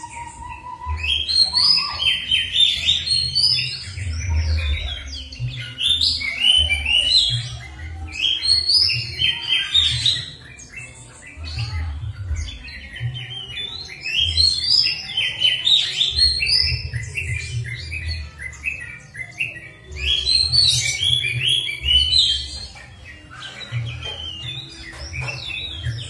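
A songbird singing a rapid, varied song of whistles and chatter, in bursts of a second or two with short gaps, over irregular low thuds. It is a masteran, a recording played to caged songbirds to tutor or provoke them into singing.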